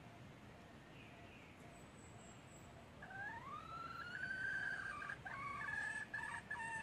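Red junglefowl crowing once. The call begins about three seconds in with a rising note, holds, and then breaks into a choppy, clipped ending, the cut-off crow typical of the wild bird.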